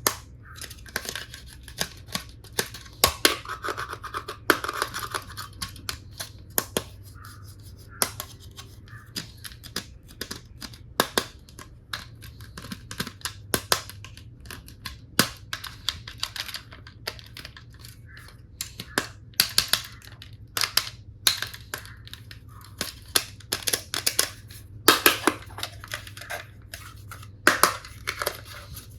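Hard plastic toy tool pieces being handled, with irregular sharp clicks and clacks and short scraping, rustling stretches.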